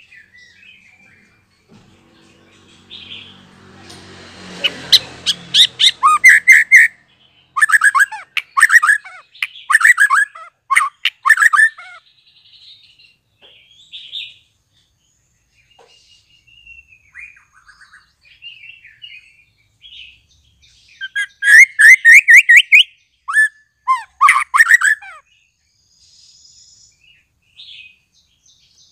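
Young white-rumped shama, just out of its spotted juvenile plumage, singing in two bouts of rapid, stuttering notes, the first about four seconds in and the second past the middle, with quieter short calls between. A brief rushing noise rises under the first bout.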